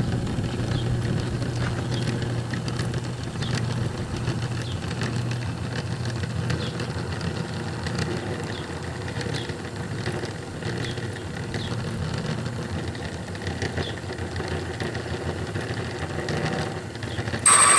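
Old electric key-cutting machine running steadily, its cutter wheel milling a practice key blank as the original key is traced along the guide. Near the end a much louder high-pitched cutting screech breaks in.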